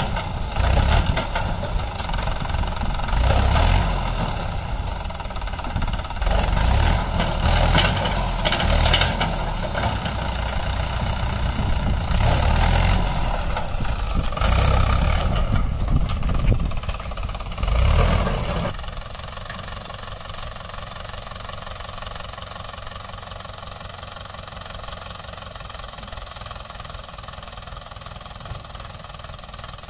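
Mahindra 575 DI tractor's four-cylinder diesel engine running while the hydraulic tipping trailer dumps its load of soil, loud and surging unevenly. About two-thirds of the way through it drops to a quieter, steady idle.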